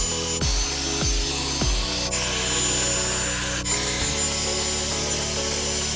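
Background music with deep kick-drum hits that drop in pitch, a held bass line and a bright hissing layer that cuts in and out abruptly.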